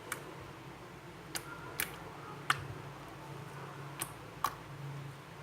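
Six light, sharp clicks and taps of small hard pieces being handled, over a faint steady hum.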